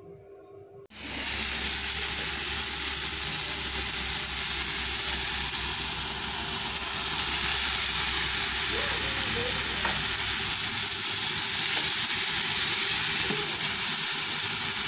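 Flaked fish with tomatoes, onion and garlic sizzling in hot oil in a pan while being stirred with a wooden spatula. The sizzle starts suddenly about a second in and then holds steady.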